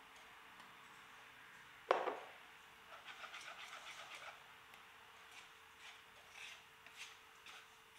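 A glass bowl set down on a stone countertop with one sharp knock about two seconds in. Then a wire whisk beats thick batter in a plastic mixing bowl: a run of quick, light clicks and scrapes, followed by scattered softer ones.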